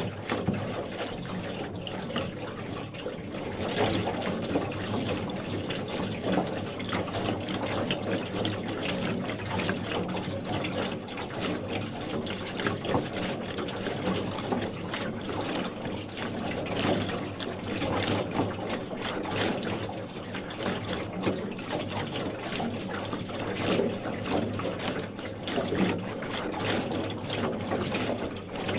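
Sound effect of something rotating: a continuous rushing, crackling noise over a steady low hum, starting abruptly and fading out near the end.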